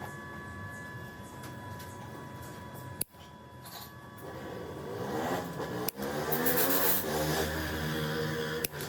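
An engine starts and revs up. About halfway through, its pitch rises and then holds at a higher steady note, with a few abrupt cuts in the sound.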